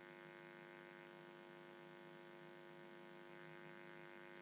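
Near silence with a faint, steady electrical hum made of many even tones, the mains hum of the recording's audio chain.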